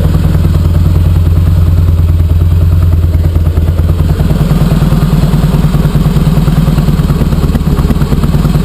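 2004 Harley-Davidson Heritage Softail's fuel-injected 88-cubic-inch V-twin running with a deep rumble; about four seconds in, its note steps up slightly. The owner puts a tinny edge in its exhaust down to a worn, loose, rusted-out baffle in the pipe.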